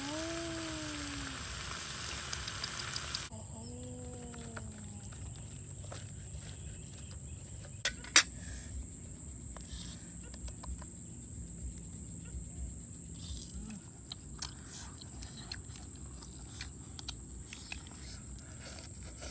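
Diced pork sizzling in a wok over a wood fire, cutting off abruptly about three seconds in. Two drawn-out animal calls rise and fall in pitch, one at the start and one about four seconds in. Then quieter scattered handling clicks follow, with one sharp click about eight seconds in.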